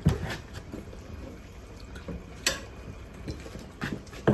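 Scattered knocks and clicks of cat food dishes being handled and set down, with a sharp click about two and a half seconds in and a couple of thumps near the end.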